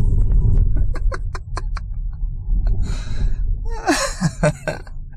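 Low rumble of the car's engine and tyres heard from inside the cabin while driving on ice, with a quick run of sharp clicks about a second in. Near the end comes a short falling vocal sound from someone in the car, with a breathy hiss just before it.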